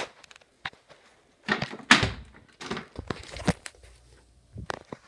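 A series of thuds and knocks from dunking on a spring-mounted mini basketball hoop hung on a door: the rim and door banging, and the small rubber ball hitting the floor. The loudest knock comes about two seconds in.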